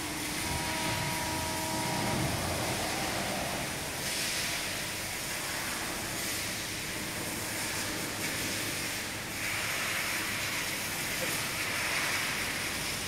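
ACCURL Euro Pro Series CNC hydraulic press brake running with a steady hiss, and a brief cluster of steady tones about half a second in.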